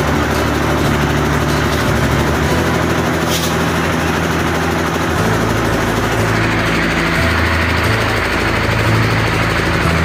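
Diesel engine of a concrete mixer with lift, running steadily under load.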